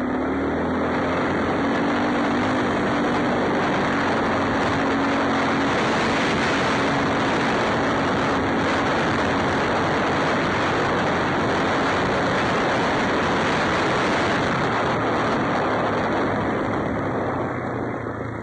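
Wind rushing over an action camera's microphone, making a steady, loud, even roar with no break.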